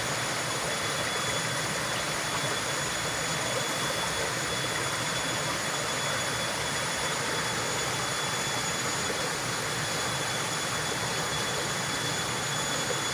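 Steady rushing of a forest stream, with a thin, steady high tone over it.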